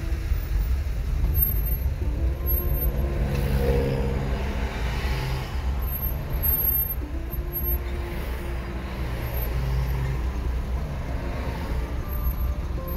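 Car driving through city traffic: steady low engine and road rumble, with a swell of noise about four seconds in.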